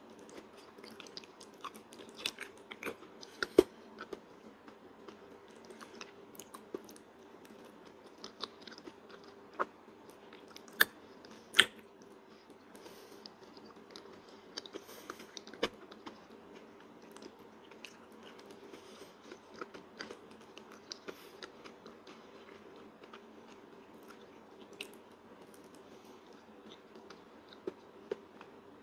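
Close-miked eating of soft durian flesh by hand: wet chewing and mouth noises with sharp lip-smack clicks at irregular moments, the loudest a few seconds in and around ten to twelve seconds in. A faint steady hum lies under it.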